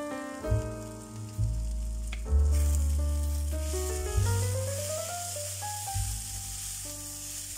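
Background music with a strong bass and a rising run of notes in the middle, over sliced onions sizzling in a frying pan. The sizzle grows louder from about two and a half seconds in, as the onions are stirred with a spatula.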